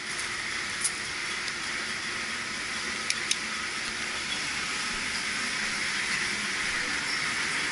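A steady hissing rush, with a light click about a second in and two quick clicks a little after three seconds.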